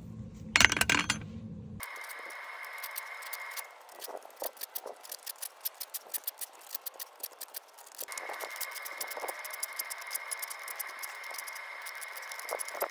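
Light metallic clicking and rattling of a chainsaw chain being worked by hand on its bar while it is clamped in a sharpening vise, with a knock about half a second in. A faint steady high whine sits underneath for the first couple of seconds and again from about eight seconds on.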